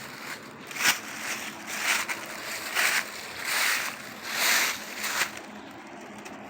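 Footsteps crunching through dry fallen leaves on a woodland trail, about one step a second, stopping about five seconds in.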